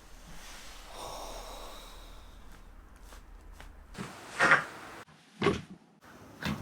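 Joints cracking under chiropractic neck and back adjustments. After a few seconds of soft rustling, a quick run of pops comes about four and a half seconds in, the loudest sound here, followed by single cracks about a second and two seconds later.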